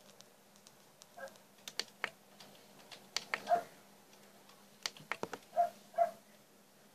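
Scattered sharp clicks and taps from a laptop being handled at its lid and power button, with a few short squeaky whines, the loudest near the middle and near the end.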